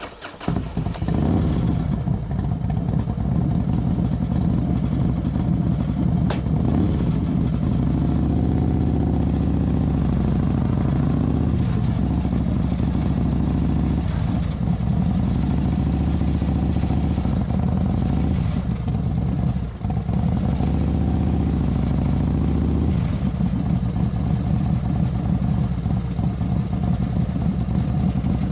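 Motorcycle engine running steadily, its pitch rising and falling a few times as it is revved, with a brief drop about twenty seconds in.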